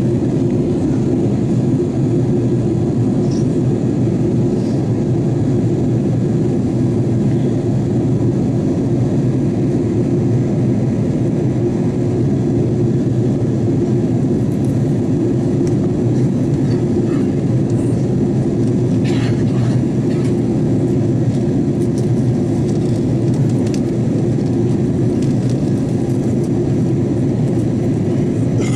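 Steady cabin noise inside an Airbus A330-200 airliner in flight: an even, low rush of engine and airflow noise, with a few faint clicks a little past the middle.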